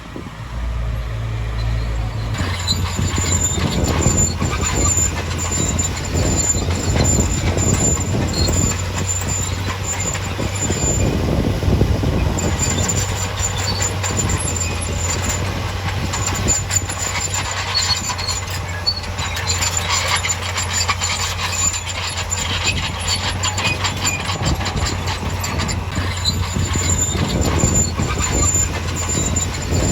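Bulldozer engine running under load with its steel tracks clanking and rattling and a high squeal that comes and goes, the sound changing abruptly about two seconds in.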